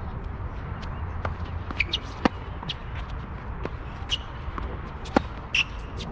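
Tennis balls bouncing on a hard court and struck by rackets: a scattering of sharp pops, the two loudest about three seconds apart, over a steady low rumble.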